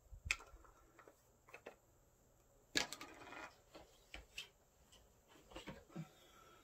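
Scattered light clicks and taps of makeup containers being picked up and rummaged through, with a short rattling clatter about three seconds in.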